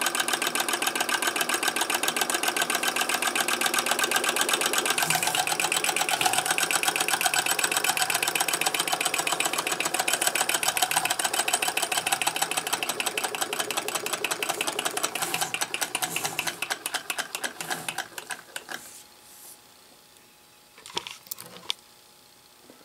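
Alcohol-fired model Stirling hot air engine running with a fast, even clatter that dies away about three-quarters of the way through. A couple of light knocks follow near the end.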